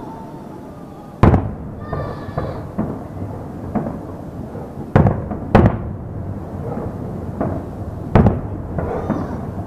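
Aerial fireworks shells bursting: four loud booms, one about a second in, two close together around five seconds, and one near eight seconds, each echoing away, with smaller pops and a rumble between them.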